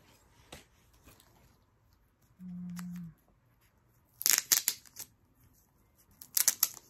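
Clear plastic photo-card sleeves crinkling and crackling as cards are handled, in two short bursts of sharp crackles about four and six seconds in. A brief low steady hum sounds about two and a half seconds in.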